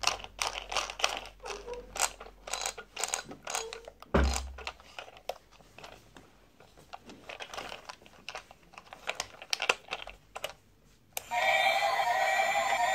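Hard plastic clicks and knocks as a plastic light-up toy train is handled and its switch on the underside is pressed, with one heavier thud about four seconds in. About eleven seconds in, the toy's electronic sound switches on: a steady, tinny, beeping tune.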